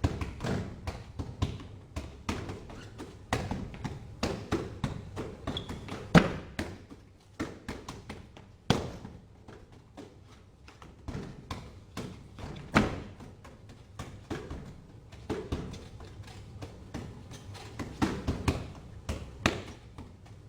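Wing Chun hand strikes: fists and forearms hitting and slapping in an irregular run of taps and thuds, often in quick flurries, with the hardest hits about six and thirteen seconds in.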